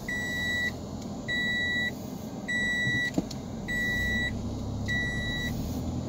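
An electronic warning chime beeping steadily, five even beeps of a little over half a second each, about one every 1.2 seconds, heard inside a moving car over the low drone of the engine and road.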